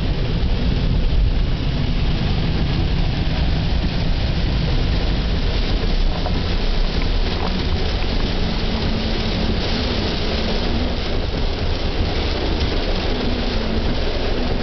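Heavy rain falling on a car's roof and windows, heard from inside the cabin. Under it is a steady low rumble from the car.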